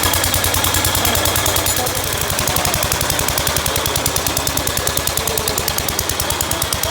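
Gravely Model D walk-behind tractor's single-cylinder engine running with a steady, rapid beat; the note shifts slightly and drops a little in level about two seconds in.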